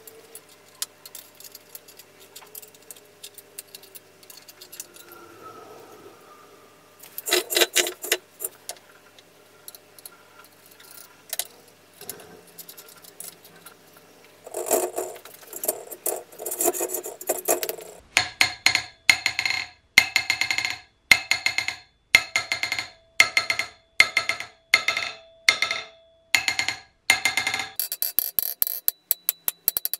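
Bursts of rapid metallic clicking from a wrench tightening the bolts that hold a small 15 kg steel anvil to its stand. Then, for the last dozen seconds, a ball-peen hammer taps the anvil's face about twice a second, and each strike rings out clearly.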